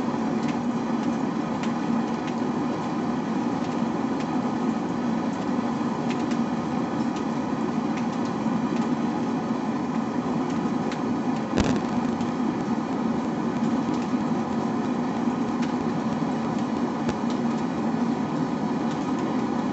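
A blacksmith's forge running: a steady, constant noise with a low hum. There is one sharp click about twelve seconds in.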